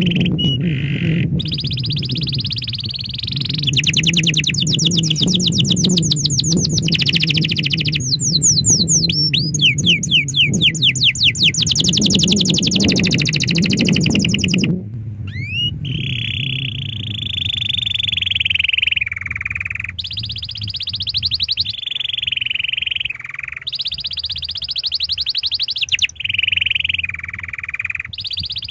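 Domestic canary singing a long, loud song of rapid trills and fast repeated notes that switch to a new pattern every second or two, with a few quick rising whistles near the middle. A low steady rumble runs under the first half and stops about halfway through.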